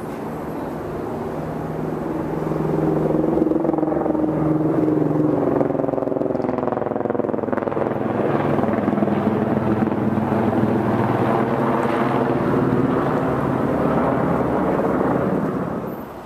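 An engine running close by and passing. It grows louder about two seconds in, with a pitch that slowly drifts, and drops away sharply near the end.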